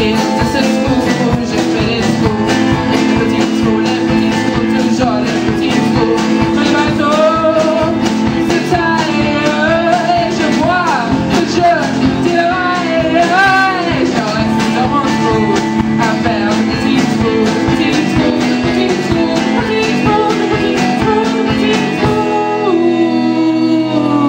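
A live band playing a passage of a song, with a steady beat of about two to three strokes a second under sustained notes and a wavering melody line. The deep bass drops out about two seconds before the end.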